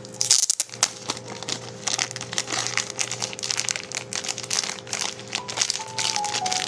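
Trading cards and their plastic packaging being handled: a dense, irregular run of small crinkles and crackles. Faint steady background music runs underneath.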